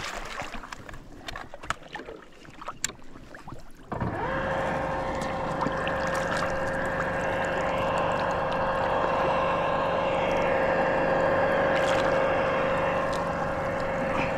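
A steady motor hum with a high whine that starts suddenly about four seconds in, after a few faint clicks.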